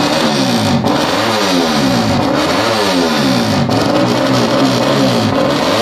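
Tuned four-stroke bebek (underbone) race motorcycle engine being revved up and down over and over, each rev climbing and dropping back within about a second. Loud.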